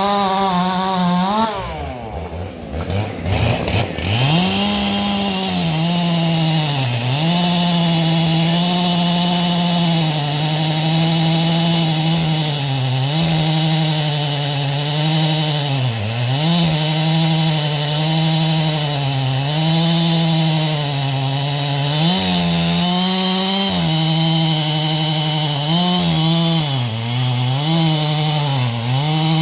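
Two-stroke chainsaw running at high revs while cutting wood, its engine pitch sagging again and again as the chain is loaded in the cut. About two seconds in the revs drop away briefly, then climb back to full speed.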